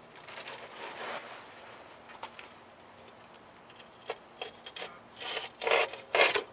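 Datsun B210 rear axle housing being shifted under the car: rubbing and scraping, then a few sharp clicks, with the loudest rasping scrapes near the end as the axle moves.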